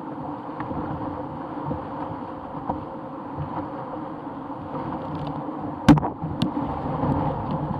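Whitewater rapids rushing steadily around an open canoe as it runs them, with a few light knocks and one sharp knock about six seconds in.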